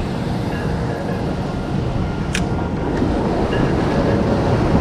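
Sea surf washing and breaking against rocks, with wind rumbling on the microphone, growing a little louder in the second half. A single sharp click about halfway through.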